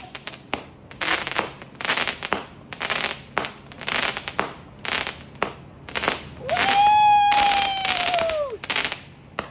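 Consumer aerial fireworks going off: a steady string of bangs and crackling star bursts, about two a second. About two-thirds through, a long high tone rises, holds for about two seconds over the crackle, then falls away.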